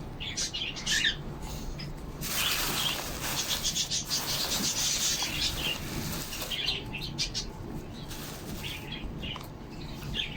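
Pigeons flapping their wings for a few seconds in the loft, with short high bird chirps just before and again near the end.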